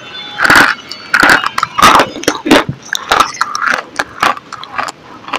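Close-mouthed eating sounds: a brittle white stick being bitten and chewed, giving a string of sharp crunches about one and a half a second, fainter near the end.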